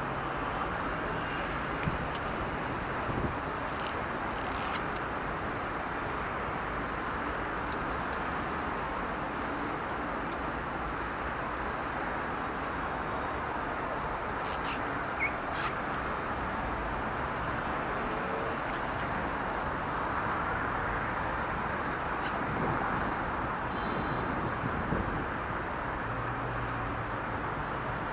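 Steady city street traffic: a continuous wash of car and tyre noise, with a few faint brief clicks and knocks.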